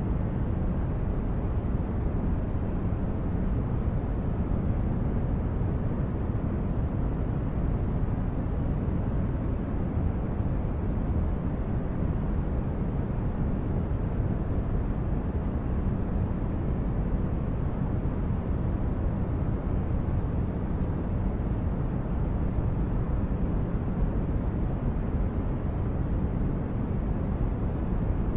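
Sci-fi starship corridor ambience: a steady, deep, unchanging hum of low noise, like brown noise, with nothing else happening.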